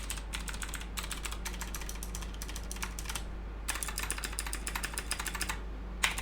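Typing on a GANSS GS87D tenkeyless mechanical keyboard with clicky Cherry MX Blue switches, PBT keycaps and foam added inside the case. A fast run of keystrokes is followed by a short pause about three seconds in, then another burst of typing and a last single click near the end.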